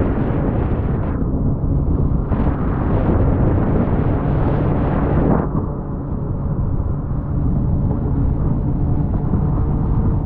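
Jet ski engine running at speed, nearly buried under heavy wind buffeting on the microphone. The wind rush is loudest in the first second and again from about two to five seconds in; after that the engine's steady drone comes through more plainly.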